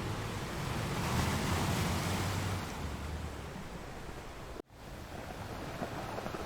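Ocean surf: waves breaking and washing, one swelling louder about a second in and easing off, over a low steady rumble. The sound cuts out for an instant about four and a half seconds in and then carries on.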